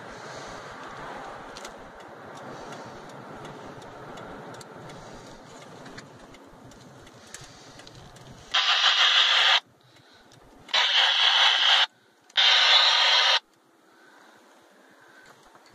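Car road and engine noise heard from inside the cabin, fading as the car slows to pull over. Then come three loud bursts of hiss, each about a second long, starting and stopping abruptly.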